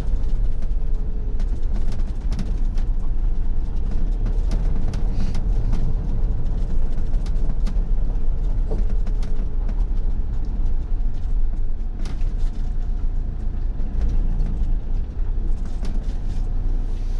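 Motorhome rolling slowly over a gravel drive, heard from inside the cab: a steady low engine and road rumble with frequent small crackles and pops from the stones under the tyres.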